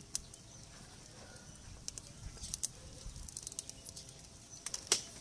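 Wood fire crackling: irregular sharp pops and snaps, with one louder snap near the end.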